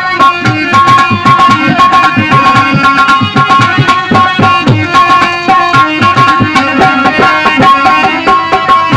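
Instrumental interlude of a live Hindi devotional song: a fast, steady hand-drum rhythm under a keyboard-like melody line, with no singing.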